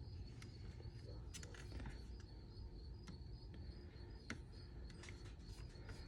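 Faint, scattered small clicks and taps from hand work with a screwdriver and small parts on a motorcycle trunk-latch assembly, about one every second. A faint steady high-pitched tone runs underneath.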